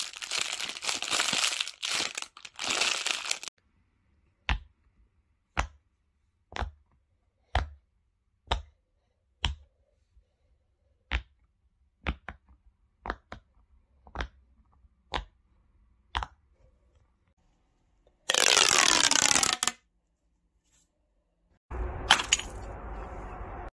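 A foil crisp packet crinkling as it is crushed in the hand, then a silicone pop-it fidget toy's bubbles popping one at a time, twelve pops about a second apart. Later, a loud rushing noise lasting about a second and a half, and near the end a low rumbling, crackling noise.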